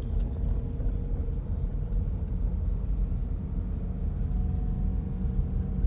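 Steady low rumble of road and engine noise inside the cabin of a V8 Jeep Grand Cherokee, rolling slowly along a snow-covered mountain road.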